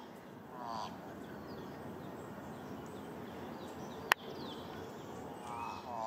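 Thick-billed raven giving two short calls, about a second in and again near the end, over faint chirps of small birds. A single sharp click a little after four seconds.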